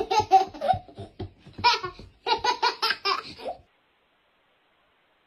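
A toddler laughing in several bursts of giggles that stop about three and a half seconds in.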